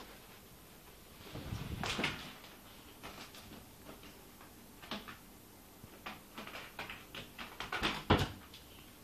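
Kitten scrambling up a carpet-covered board propped against a door, its claws catching and knocking against it. A louder scrape and thump comes about two seconds in, and a quick run of knocks and bumps comes near the end.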